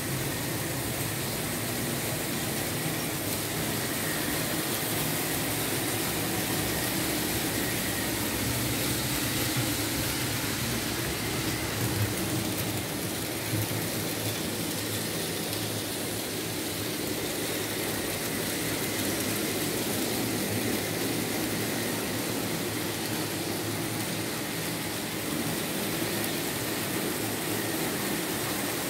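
Märklin H0 model trains running on the layout's tracks: a steady whir of small electric motors and rumble of wheels on the rails, with a couple of light clicks around the middle.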